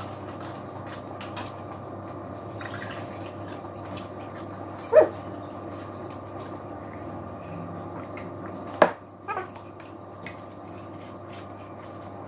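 Quiet eating at a table over a steady background hum: a couple of sharp clicks of a knife or glass against a plate or tabletop near the end, and one short whine that rises and falls about five seconds in.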